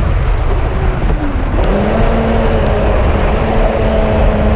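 Radio-controlled racing boat's motor whining as the boat runs over the water, with heavy rushing of water and wind on the onboard microphone. The motor's pitch is low at first, rises about one and a half seconds in, holds steady, and starts climbing again at the very end.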